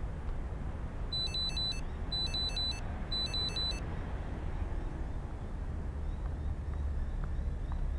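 Low, steady rumble of outdoor road traffic, broken about a second in by three quick bursts of high electronic beeps, each a rapid run of four or so beeps, about a second apart.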